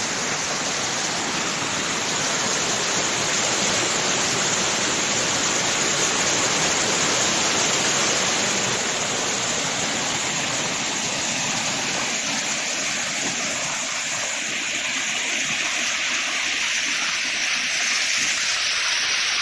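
Waterfall water rushing steadily. About halfway through the deeper part of the sound fades, leaving a thinner, higher hiss.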